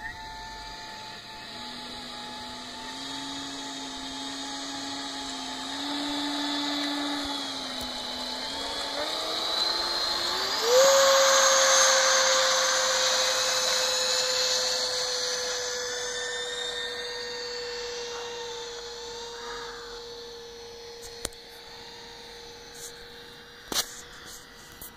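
Motor whine of a radio-controlled plane on its take-off run with a chase quadcopter's motors. The plane's pitch holds low, rises sharply about ten seconds in as it throttles up, is loudest there, then slowly drops and fades as the plane climbs away. A couple of short clicks come near the end.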